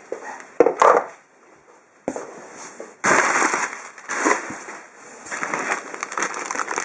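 Plastic packaging being handled, crinkling and crackling in irregular bursts along with rustling cardboard; the loudest stretch starts about three seconds in.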